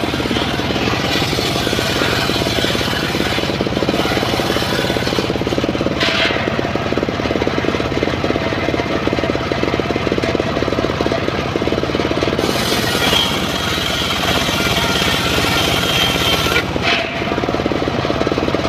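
Engine-driven homemade circular saw bench running steadily with a low, rapid engine beat. The blade rips lengthwise through timber in two stretches, adding a higher hiss for roughly the first six seconds and again from about twelve to seventeen seconds.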